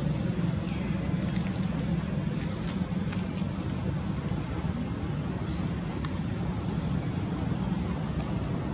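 Steady low outdoor rumble with scattered short, high chirps on top.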